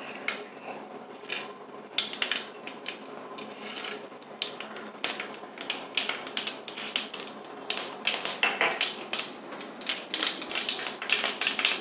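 Mustard seeds spluttering in hot oil while tempering: a continuous scatter of irregular sharp pops and crackles that grow denser near the end.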